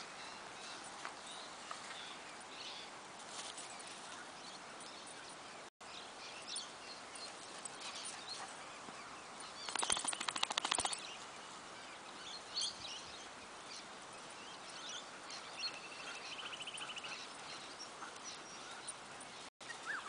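Outdoor field ambience with scattered bird calls. A short, loud rattling burst comes about halfway through, and a brief even trill follows a few seconds later.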